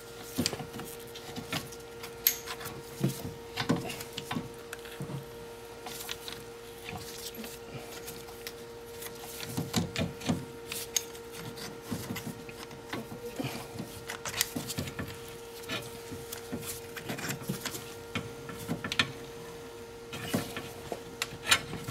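Caliper piston wind-back tool being turned by hand against a rear brake caliper piston, giving irregular metal clicks and scrapes as the piston is screwed back, over a faint steady hum.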